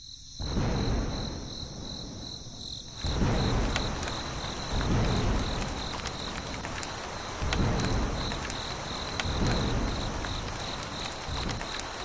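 Outdoor ambience: an insect chirping in an even high pulse, about two to three chirps a second, over a low rushing noise that swells and fades every second or two.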